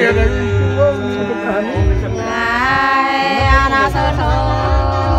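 Nùng women singing hát sli, the Nùng folk song of long, slowly wavering held notes.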